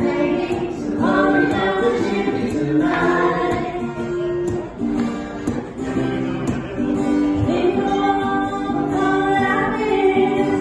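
Several voices singing a song together to an acoustic guitar.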